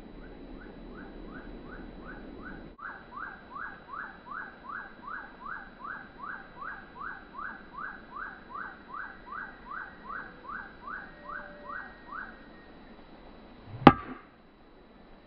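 A bird sings a long series of repeated downslurred whistled notes, about two a second. Near the end a golf club strikes a teed ball with a single sharp, loud crack, the loudest sound here.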